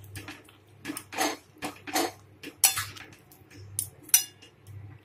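Spatula scraping and knocking against a metal kadai while stirring a thick yogurt fish curry: a string of short, irregular strokes.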